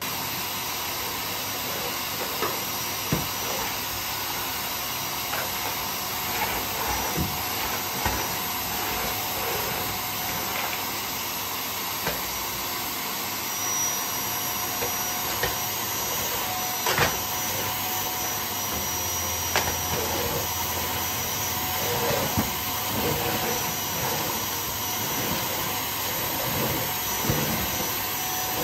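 Canister vacuum cleaner running steadily, a dense rushing noise with a faint high whine, as the floor nozzle is pushed along the floor beside a wall. Occasional short clicks and knocks from the nozzle and wand.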